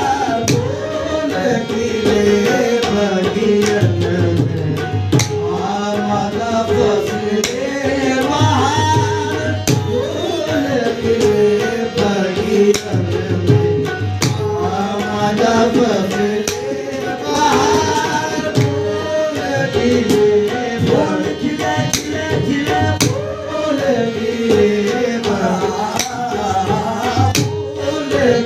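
Qawwali: several men singing together in Urdu/Hindi over a harmonium, with a steady beat of hand-drum strokes.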